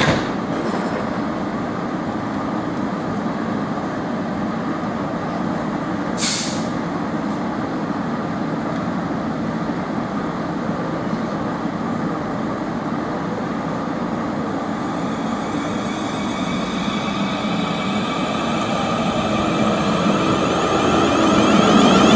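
Train at a station platform: a steady mechanical hum, one short sharp hiss of air about six seconds in, then growing louder over the last several seconds with a faint rising whine.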